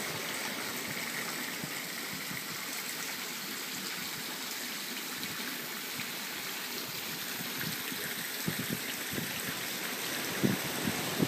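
Water spilling from a stone bowl fountain into a swimming pool: a steady splashing trickle. From about eight seconds in, a few irregular low thumps on the microphone come over it.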